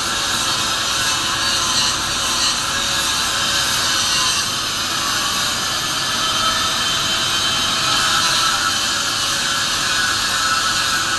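Handheld angle grinder grinding steel: a steady, high hissing grind with no pauses.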